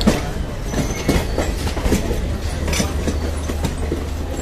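Slow-moving passenger train rolling along, its wheels clattering irregularly over rail joints and points above a steady low rumble.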